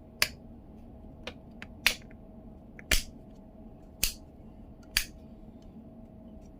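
Sharp clicks of small plastic parts being worked by hand: five loud ones about a second apart, with a few fainter ticks between them.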